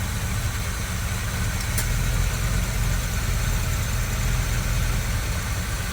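1986 Chevrolet El Camino engine idling steadily and smoothly: it runs evenly now that the misfire has been fixed, and the car doesn't shake.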